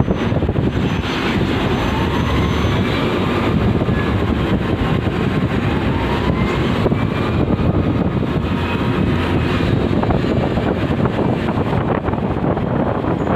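Heavy machinery running steadily while bauxite ore is loaded into a ship, a dense continuous rumble with faint rising squeals coming and going.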